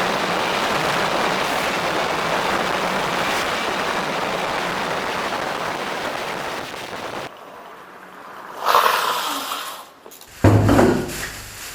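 Steady rushing wind and road noise from riding an electric scooter, slowly fading. About seven seconds in it cuts off abruptly to a much quieter room, with a few short handling sounds near the end.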